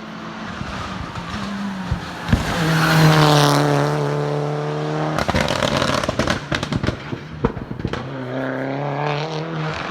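A hillclimb race car at full throttle, its engine note loudest about three seconds in. From about five seconds in comes a rapid string of sharp bangs and crackles from the exhaust, then the engine pulls hard again near the end.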